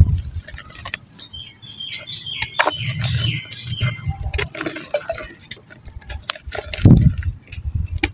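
Soft, water-soaked mud or cement chunks being crumbled and squeezed, giving irregular wet crunches, crackles and soft thuds, the heaviest about seven seconds in. A brief high warbling sound runs for about two seconds starting near one and a half seconds in.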